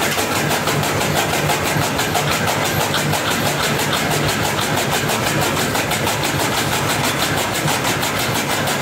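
Powered chaff cutter running as green fodder is fed into it by hand. Its flywheel blades chop in a fast, even rhythm over a steady machine hum.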